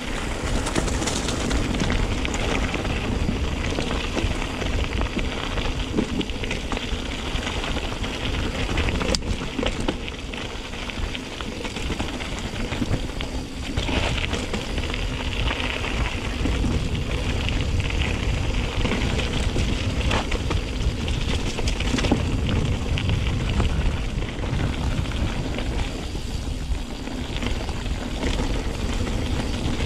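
Mountain bike riding down a rough trail: the tyres roll over gravel and stones, and the bike gives many small knocks and rattles. A steady low wind rumble sits on the chest-mounted microphone.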